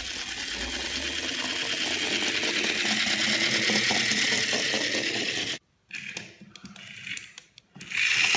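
Small battery-powered toy bullet train's motor and gears whirring steadily as it runs across a wooden floor, growing louder as it nears. The whirr cuts off suddenly a little past halfway, a few faint clicks follow, and a similar whirr starts again near the end.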